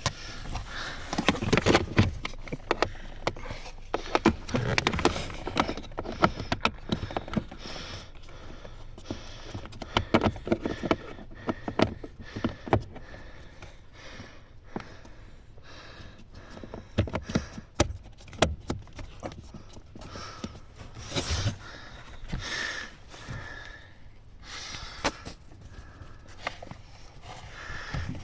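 Hands fitting a plastic air door actuator into the side of a car's HVAC air box under the dash: irregular plastic clicks, taps and knocks with rustling handling noise.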